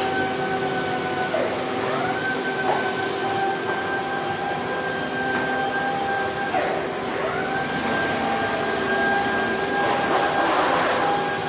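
Workshop power tool motor whining: it spins up to a steady pitch, holds for about five seconds, winds down, then spins up again, over a steady hum of machinery.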